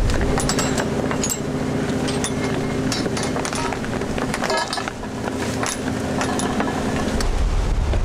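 A long, steady two-tone boat horn blast that holds for about seven seconds, with scattered sharp clicks and clanks over it. When the horn stops, a low rumble takes over.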